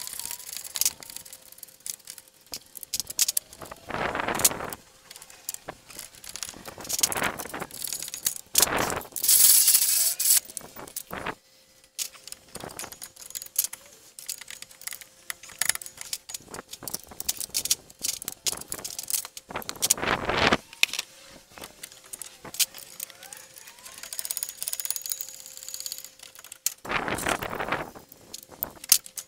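Metal tools and suspension parts clinking and rattling as a car's front lower control arms are taken off, with scattered clicks and several short, louder bursts of noise. A faint steady hum runs underneath.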